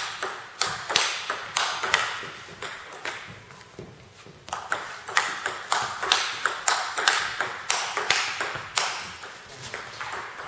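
Table tennis rally: the ball clicking sharply off the rackets, one faced with Nittaku Monophonic inverted rubber, and bouncing on the table in a quick back-and-forth rhythm. The clicks thin out to a short lull about three to four seconds in, then the rally picks up again.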